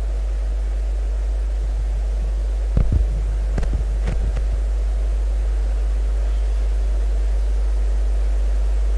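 A steady low electrical hum, with a few short dull thumps about three and four seconds in.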